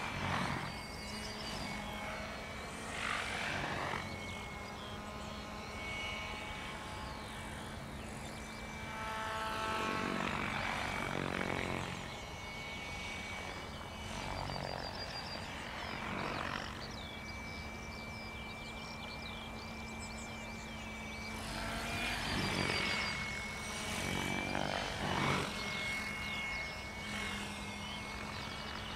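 Compass Chronos 700 electric RC helicopter flying 3D aerobatics at a low 1400 rpm headspeed: a steady high whine from the motor and drivetrain, with whooshing swells from the rotor blades several times as it loads up in manoeuvres.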